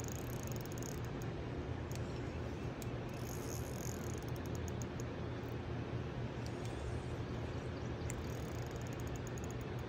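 Spinning fishing reel clicking in short spells of rapid ticks as a hooked fish is fought and reeled in, over a steady low rumble.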